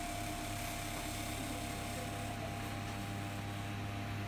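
Steady room tone: a low electrical-sounding hum with a faint steady higher tone over a light hiss, with no distinct events.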